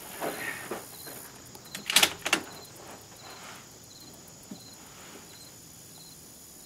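Bolt of a Gewehr 88 Commission rifle being worked by hand: light handling clicks, then a quick run of three sharp metallic clacks about two seconds in as the bolt is cycled. Crickets chirp steadily in the background.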